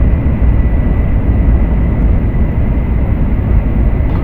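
Steady low rumble of a Shinkansen bullet train running, heard inside the passenger car, with a faint steady high tone over it.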